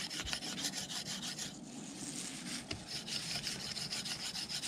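Steel knife blade scraping along a freshly cut green willow rod in quick repeated strokes, clearing the green sap layer from under the bark.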